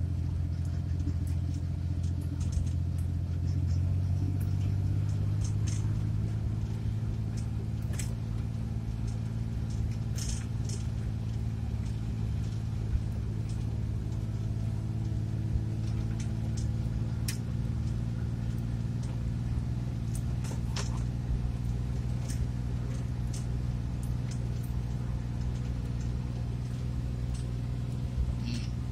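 Small van's engine and road noise heard from inside the cabin while it is being driven: a steady low drone that rises slightly in pitch a few seconds in, with scattered light rattles and clicks.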